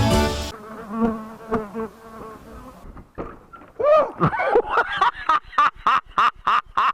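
Background music cuts off about half a second in. Then flying insects buzz close by, passing in many short swooping whines that rise and fall in pitch and loudness, strongest from about four seconds in.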